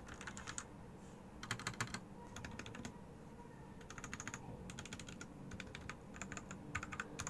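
Typing on a mechanical keyboard with linear red switches: runs of quick key clacks with short pauses between them.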